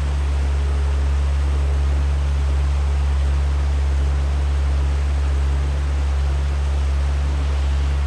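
Steady rush of a mountain stream's flowing water, an even hiss over a deep constant rumble.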